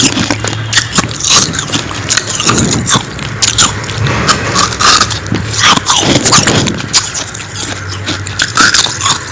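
Close-up biting and chewing of freezer frost (humidifier frost), an irregular run of crisp crunches and crackles, with some scraping. A faint steady low hum sits underneath.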